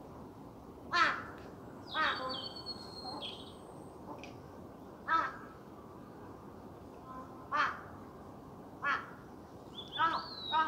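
Bird calls, about seven short calls spaced one to three seconds apart and coming in a quick cluster near the end. A thinner, higher whistled call from another bird is heard about two seconds in and again near the end.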